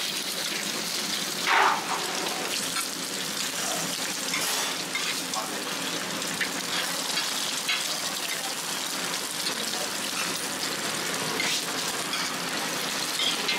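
Scallion pancakes frying in hot oil: a steady, dense sizzle, with one brief louder sound about one and a half seconds in.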